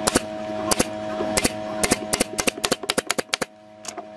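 Pneumatic brad nailer firing nails into a pine board corner: a rapid, irregular string of sharp shots, more than a dozen, coming fastest in the middle, with a single last shot near the end.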